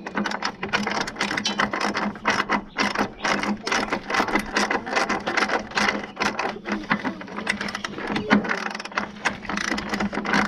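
Socket ratchet clicking rapidly and steadily as a nut is run up onto a driving-light mounting bolt.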